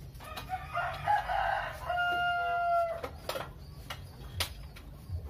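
A rooster crowing once: a rough, wavering opening that settles into a long held final note, then stops sharply. A few faint clicks follow.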